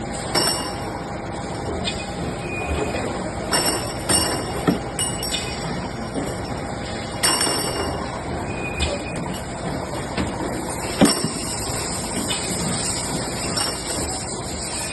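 CNC auto-feed double-end pipe chamfering machine running: a steady mechanical din broken by sharp metallic clanks every second to few seconds, the loudest about eleven seconds in, with high metallic ringing and squealing tones that come and go.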